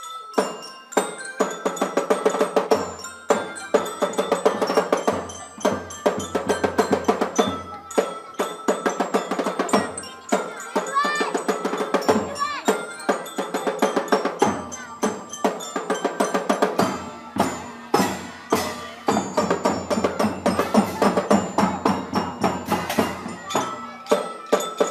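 Drum band playing: drums beat a quick, steady rhythm while ringing mallet instruments of the glockenspiel kind carry the melody.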